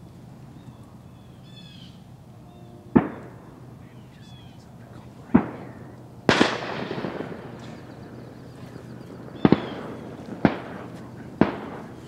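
Shotgun shots fired across a marsh: seven sharp reports, one a quick double, with the loudest about six seconds in trailing a long rolling echo over the water. A few short bird calls sound between the shots.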